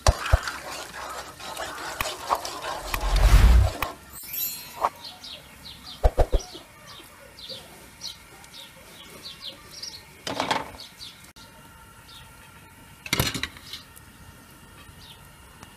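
Raw meatballs dropped by hand into a pot of boiling water, with a few short splashes and knocks and a loud low thump about three seconds in. Small birds chirp repeatedly in the background.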